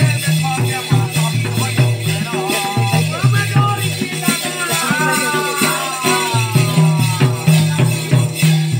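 Live Kudmi folk music: jingling, rattling percussion over low pulsing notes, with a melody line that slides downward in pitch around the middle.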